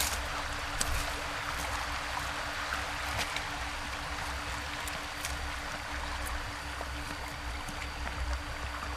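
Shallow, clear river running over a stony riffle: a steady rush of water, with a low rumble underneath and a few faint clicks.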